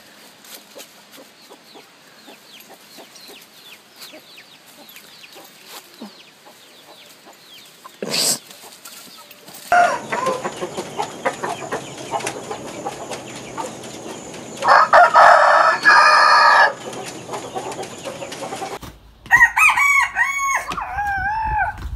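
Chickens clucking, with one rooster crow of about two seconds past the middle, the loudest sound; short bending clucks follow near the end.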